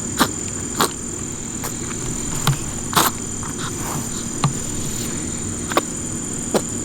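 Pet rabbit sneezing in a fit: about seven short, sharp sneezes roughly a second apart, the loudest about three seconds in.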